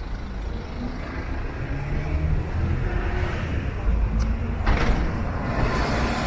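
Street traffic: a motor vehicle, likely a bus, passing close by with its engine rumbling, and a short hiss nearly five seconds in.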